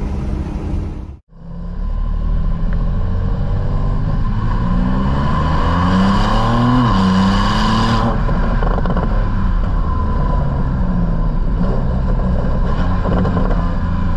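Twin-turbo flat-six of a 2021 Porsche 911 Turbo S with sport exhaust, heard from a camera on the car's body, pulling under acceleration. The engine note rises steadily, drops sharply at an upshift of the PDK gearbox about seven seconds in, then runs on at a steadier pitch. The sound cuts out briefly about a second in.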